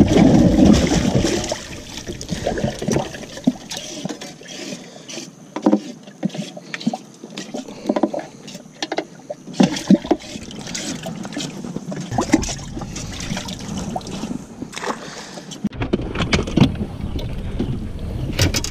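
Handling noises on a bass boat. A fish splashes in the livewell water in the first second or so, then scattered knocks and clicks follow as a cull tag is fastened and gear is shifted on the carpeted deck.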